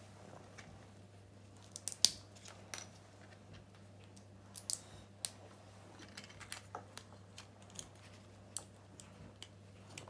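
Plastic Lego bricks clicking and tapping as pieces are handled and pressed together: scattered, irregular sharp clicks, the loudest about two seconds in.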